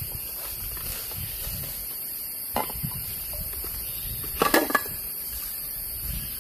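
A few light clatters of containers being handled at a camp cooking spot, the loudest a little past halfway. Under them runs a steady high drone of forest insects.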